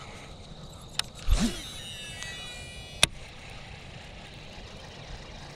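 A cast with a baitcasting rod and reel: a short swish of the rod, then the spool spinning out with a brief high whine of several tones, and a sharp click about three seconds in as the reel is engaged for the retrieve.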